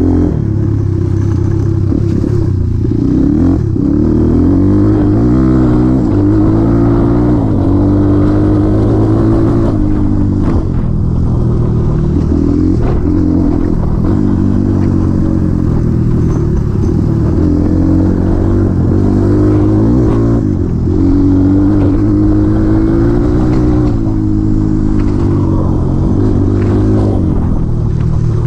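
Honda XR200R's single-cylinder four-stroke engine running loud under load, its pitch repeatedly climbing and dropping as the throttle is worked and gears change. A few sharp knocks and rattles come through.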